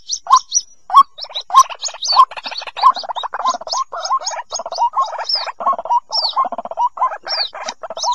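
White-breasted waterhen chicks calling for the parent. A fast run of thin, high peeps, some sliding downward, sits over lower repeated notes that thicken into a dense rattling chatter about a second in.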